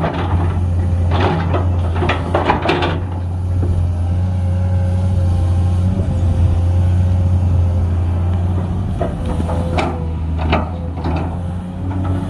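Komatsu 210 excavator's diesel engine running steadily under load. Sharp metallic clanks and scraping come in the first few seconds and again near the end, and a thin steady whine rises over the engine in the middle.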